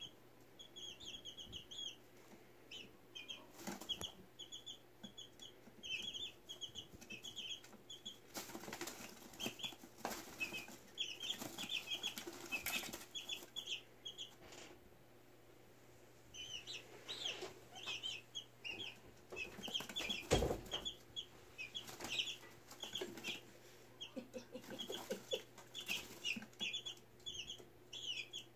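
Young chicks peeping, short high peeps several a second with a pause about halfway, mixed with bursts of wing flapping and scuffling. A single louder thump comes about two-thirds through.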